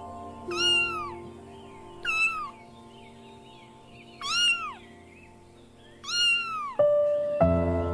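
A cat meowing four times, a second or two apart, each meow rising then falling in pitch, over soft background music. The music gets louder near the end.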